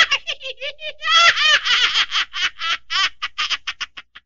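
A cartoon tortoise's voice-acted laughter: a long, high-pitched run of 'ha-ha's that thins out and trails off near the end.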